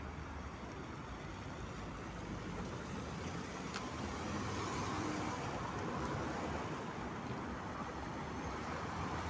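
Road traffic at an intersection: cars passing close on wet asphalt, with tyre hiss swelling as they go by about halfway through over a steady rumble of engines.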